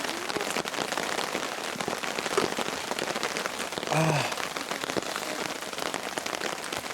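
Steady rain falling, with many close, sharp drop impacts throughout. A brief voice sounds about four seconds in.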